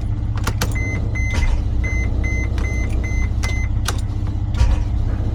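Mercedes Sprinter's 3.0L OM642 V6 diesel cranking on the starter without firing, with a high beep repeating in quick groups and a few sharp clicks. It is a no-start: a crankshaft position sensor spacer holds the sensor too far from the tone wheel, so the ECU gets no crank signal.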